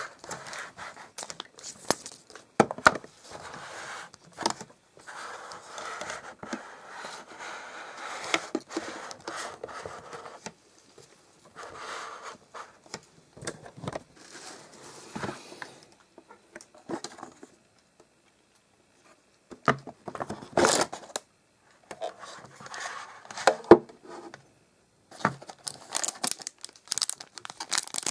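Hands handling a plastic Thomas the Tank Engine snack box, with irregular plastic clicks and knocks, and cellophane snack wrappers crinkling, in stop-start bursts with a few short pauses.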